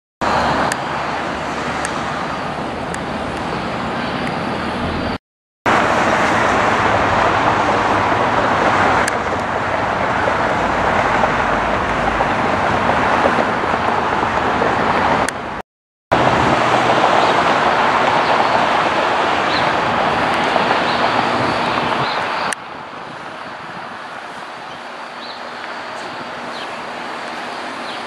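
Jet airliner engines, a loud steady rush with no clear pitch, in several clips cut one after another. Brief silent gaps fall at about five and sixteen seconds, and the last clip, from about twenty-two seconds, is quieter.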